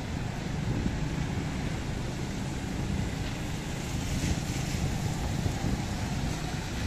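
Steady city street noise: a low traffic rumble under an even hiss.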